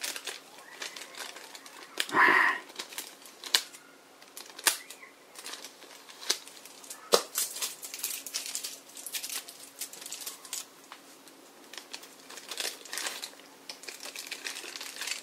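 Thin clear plastic packaging and sticky tape crinkling and crackling as fingers pick at a taped packet, with one louder crackle about two seconds in.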